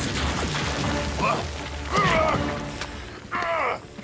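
Cartoon action soundtrack: background music under fight sound effects, with impact hits and several short strained cries or groans, the last and longest about three and a half seconds in, as a ghoul is knocked to the ground.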